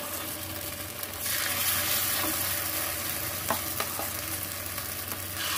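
Puffed-rice batter sizzling in the oiled cups of an appe pan: a steady hiss that grows louder about a second in, with a few faint clicks.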